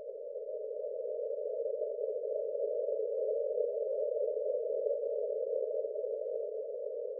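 Slow paced-breathing guide sound: a soft, steady whooshing tone in a narrow band, one long breath phase that swells over the first few seconds and then holds.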